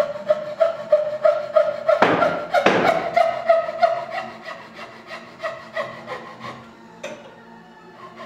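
Thin-bladed hand frame saw cutting into a walnut shotgun stock in quick back-and-forth strokes, about three a second, each stroke carrying a ringing note from the blade. The strokes grow weaker near the end.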